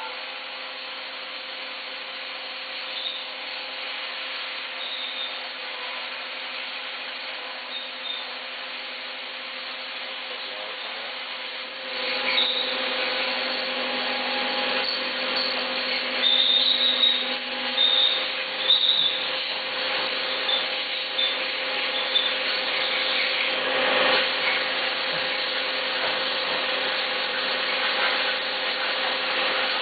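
Mazak VTC250-50 CNC vertical mill running with a steady whine. About twelve seconds in it grows louder and rougher, with short high squeaks a few seconds later.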